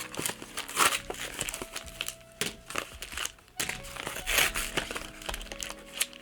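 Cardboard box and its packaging being torn open by hand: a run of ripping, crinkling and crackling.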